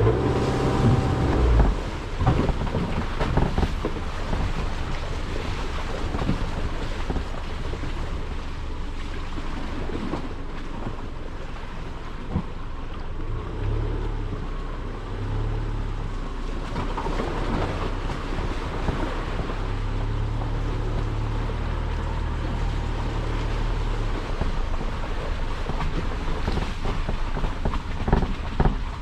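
Car driving along, its engine running under a broad rush of road and wind noise, with a steadier low engine hum from about a third of the way in to about two thirds through and occasional light knocks.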